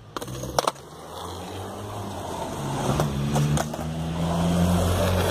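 Skateboard wheels rolling over concrete, a rumble that grows steadily louder through the second half. A couple of sharp clacks come in the first second.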